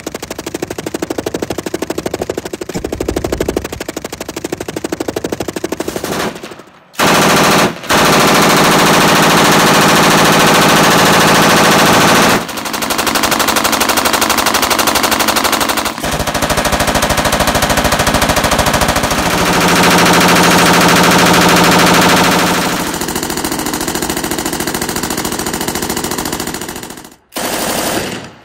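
M249 SAW light machine gun firing long bursts of fully automatic 5.56 mm fire, the shots coming in a rapid, even stream. Short breaks fall between bursts about a quarter of the way in and near the end.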